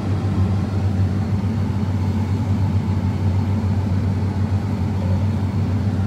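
John Deere X9 combine harvester running steadily under load while harvesting wheat, heard from inside the cab: an even low drone with a steady hum.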